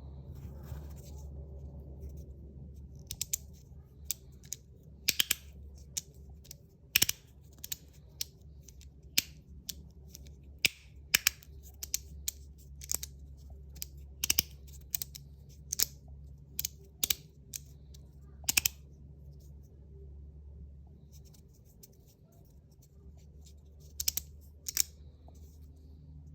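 3D-printed magnetic fidget slider being played with, its plates snapping into place with sharp clicks at an irregular pace, sometimes in quick pairs, with a pause of a few seconds near the end. A low steady hum lies underneath.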